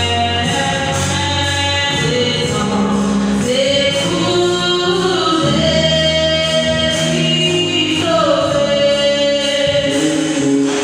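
Gospel song sung by several voices in harmony, with long held notes that glide from one pitch to the next.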